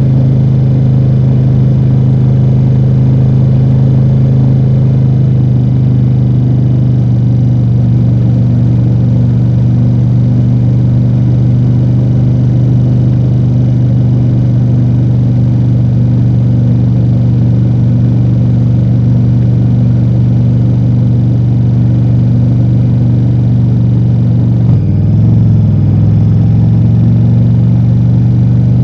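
Ducati Multistrada V4 Rally's V4 engine through its stock exhaust, running at a steady speed with an even, unchanging note. Near the end the note briefly dips and settles at a slightly different pitch.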